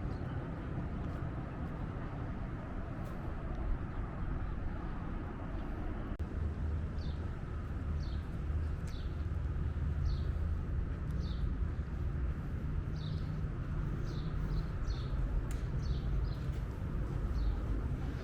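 Steady low rumble of outdoor background noise, with a bird calling in short, repeated falling chirps from about seven seconds in.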